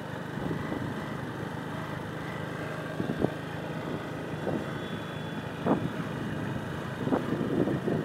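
Motorcycle engine running steadily at cruising speed, with wind rush over the microphone and a few brief thumps in the middle and near the end.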